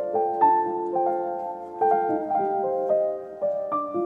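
Background music: a gentle piano melody of overlapping, ringing notes.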